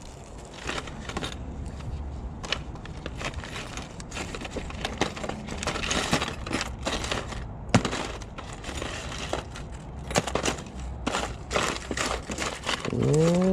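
Hands rummaging through a drawer of coins and small costume-jewelry pieces: irregular clinks, rattles and rustling, with one sharper knock about eight seconds in.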